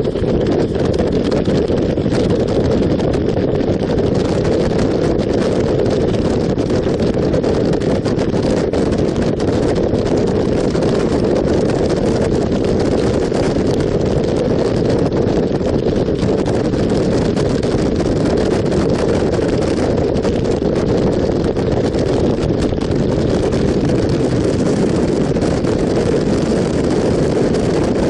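Motorcycle ridden at steady road speed: constant wind rush on the microphone, with the engine and tyres running beneath it.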